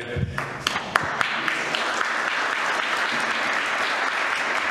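Congregation applauding: a few scattered claps about a second in quickly build into steady applause.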